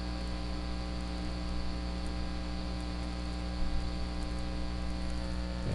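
Steady electrical mains hum with a stack of evenly spaced overtones and a faint hiss over it.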